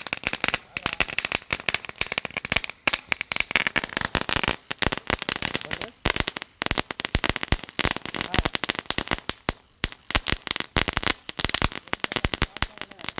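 Firecrackers going off in a long run of rapid, irregular sharp cracks, with a few brief pauses.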